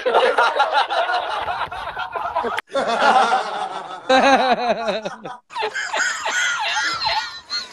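Men laughing hard in repeated loud bursts, three separate laughing clips cut together with abrupt breaks about two and a half and five and a half seconds in.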